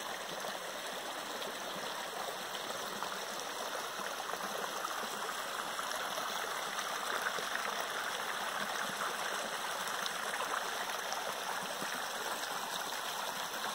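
Small spring-fed mountain creek running shallow over stones, a steady trickling rush of water.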